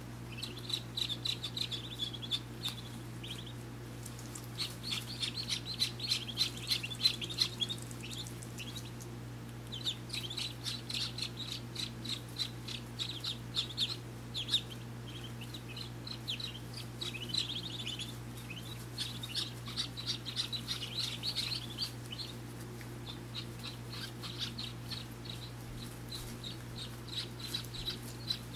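Muscovy ducklings peeping: many short, high peeps in busy clusters with brief lulls, over a steady low hum.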